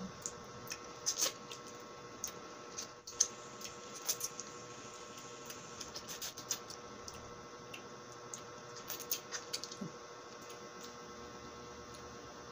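Close-miked wet mouth sounds of a woman sucking and eating a lemon slice: scattered small smacks, clicks and squelches. A faint steady hum runs underneath.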